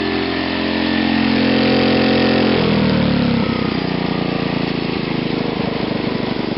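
Small OHC gasoline engine running on a GEET fuel-processor reactor with an RC carburetor. It runs at a fairly high, steady speed, then about halfway through its speed drops and it settles to a slower idle in which the separate firing beats can be heard.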